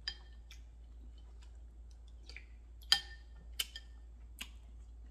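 Spoon clinking against a ceramic soup bowl: about five separate clinks with a short ring, the loudest about three seconds in.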